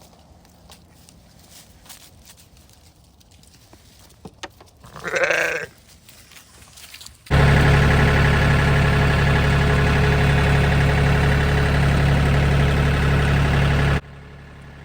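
A sheep bleats once, briefly, about five seconds in, over faint clicks. Then a loud, steady engine starts abruptly, with a low even hum, and cuts off just as suddenly shortly before the end.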